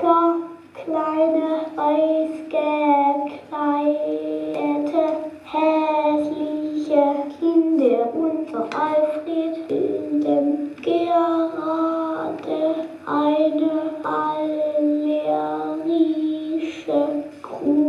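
A woman singing a melody alone, in short phrases of held notes.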